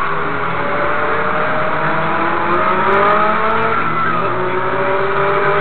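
Several motorcycle engines running together in traffic, their notes rising slowly as they accelerate, over a steady rush of road noise.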